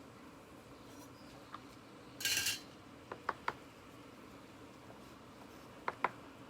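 Kitchen utensils and dishes being handled at a work counter: a short scrape about two seconds in, then three light clicks in quick succession and two more near the end.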